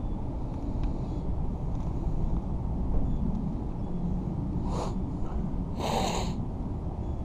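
Steady low outdoor rumble on the microphone, with two short hissing noises, a brief one just before five seconds in and a louder one about a second later.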